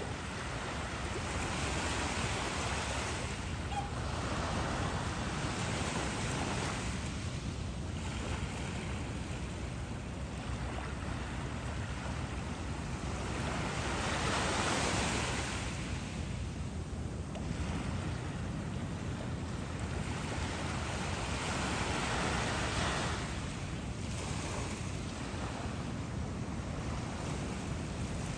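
Small ocean waves washing in, the surf swelling and easing every few seconds, over a steady low rumble of wind on the microphone.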